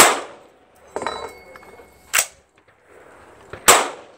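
AR-15 rifle with a Faxon barrel and integrated muzzle brake being fired: a loud shot right at the start and another about three and a half seconds in, with two quieter shots between them, each a sharp crack that rings out briefly.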